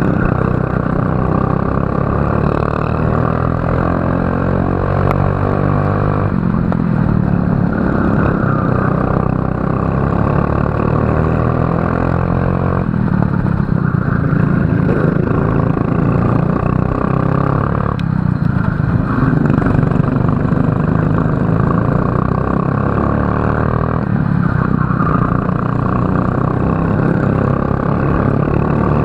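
Racing kart engine at full throttle, its revs climbing steadily and then dropping sharply for a corner, four times over, about every five to six seconds.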